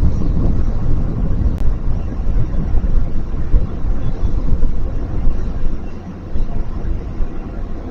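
Wind buffeting an outdoor microphone: a loud, gusty low rumble that swells and dips irregularly, easing briefly about six seconds in.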